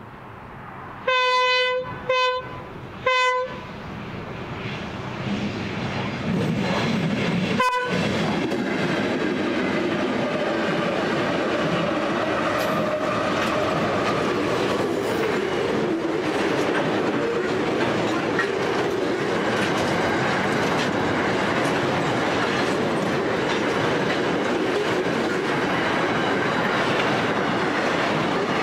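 Diesel freight train's horn sounded as it nears the level crossing: one longer blast about a second in, two short ones, and another short toot near eight seconds. The locomotives' engines then come up and a long rake of boxcars rolls past with steady wheel clatter and rumble.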